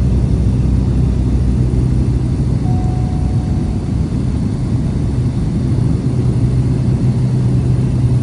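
Steady drone of a light propeller aircraft's engine, heard from inside the cabin, with a constant low hum and no change in pitch.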